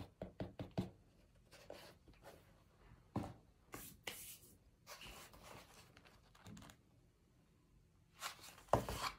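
Packaging bag rustling and crinkling as it is shaken out and handled over a bowl of cornstarch chunks, with scattered crackles and soft knocks. Near the end comes louder handling noise as the plastic bowl is lifted.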